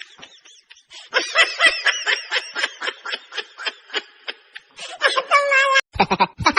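A person laughing in rapid, high-pitched snickers, about four or five a second, ending in a drawn-out note just before the end.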